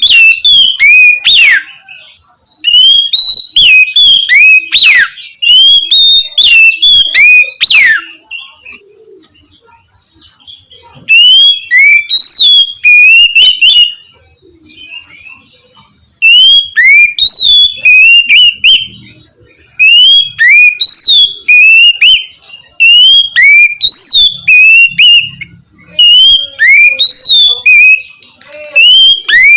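Oriental magpie-robin (kacer) singing loud, clear whistled phrases of quickly rising and falling notes. It sings in bouts of a few seconds with short pauses between them.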